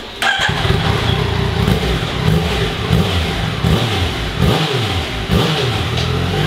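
Yamaha XSR 900's inline-three engine on the stock exhaust, revved up and down several times.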